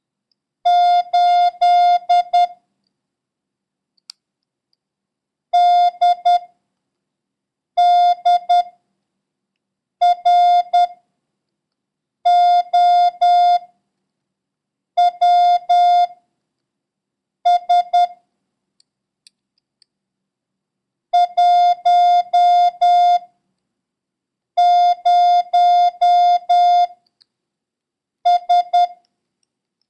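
Morse code practice tone of about 700 Hz keyed in short and long beeps (dits and dahs). Each group of beeps is one character, and about eleven characters are sent with pauses of a second or more between them for copying.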